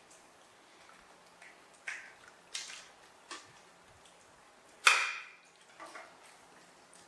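Scattered light taps, scrapes and clinks of plates and plastic sippy cups on a tiled floor while monkeys eat rice. The loudest is a sharp clink with a brief ring about five seconds in.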